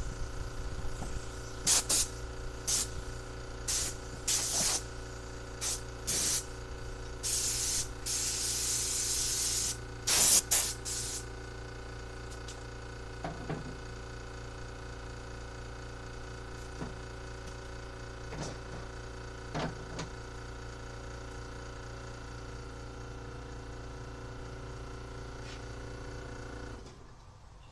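About ten hissing blasts from a compressed-air blow gun in the first eleven seconds, one lasting a couple of seconds, blowing dust off a carburetor. Under them an electric air compressor runs with a steady hum, which stops near the end.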